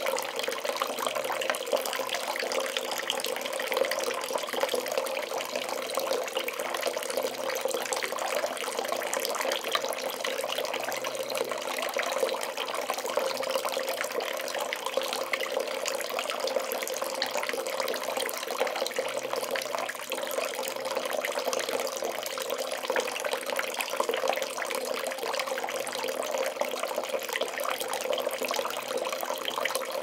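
Bath tap running, water pouring steadily into a bathtub as it fills.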